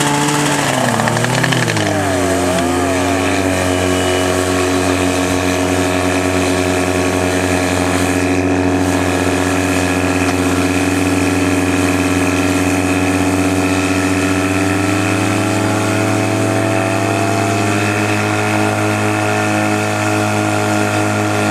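Portable fire pump's engine running hard, revving up and wavering over the first few seconds, then holding a steady high speed as it pumps water out through the hoses to the nozzles. Its note shifts slightly about fifteen seconds in.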